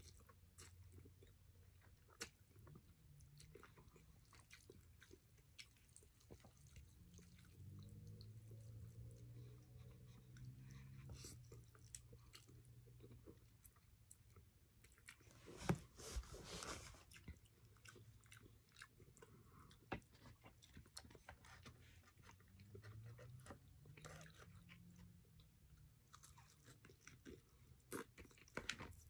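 Faint close-up eating sounds: a person chewing palabok rice noodles and fried chicken, with small wet mouth clicks throughout. There is a louder burst of noise about halfway through and a sharp bite near the end as she bites into the fried chicken.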